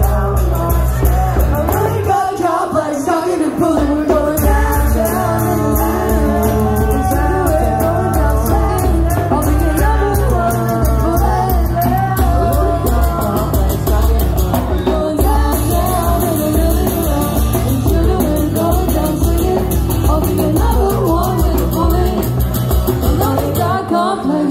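Loud amplified music with singing over a heavy bass line. The bass drops out briefly about two seconds in and then comes back.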